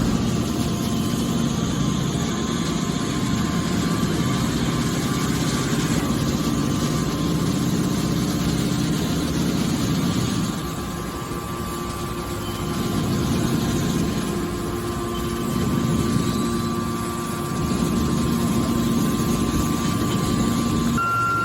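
Hydraulic can baler's motor and pump running with a steady mechanical hum, dropping slightly in loudness for a couple of seconds about halfway through.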